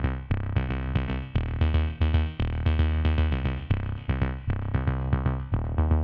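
Background electronic music with a steady drum-machine beat and synthesizer notes.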